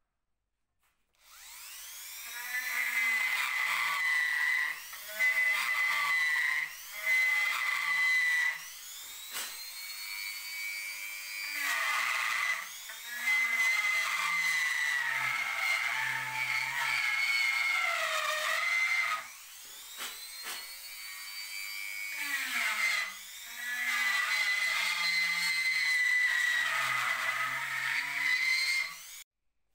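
Handheld rotary tool with a small bit grinding a groove along a crack in an old weathered wooden bench board. Its high whine drops in pitch as the bit bites into the wood and climbs back between passes, with several short lifts, starting about a second in and cutting off just before the end.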